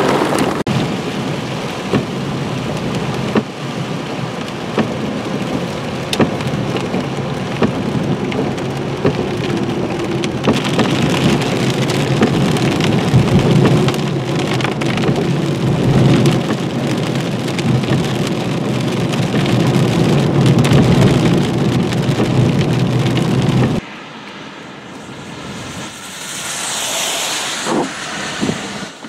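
Heavy rain and small hail, dime to penny size, pelting a car's roof and windshield, heard from inside the car: a steady rain hiss dotted with sharp ticks of stones. Near the end it cuts off suddenly to a much quieter open-air sound that swells and fades once.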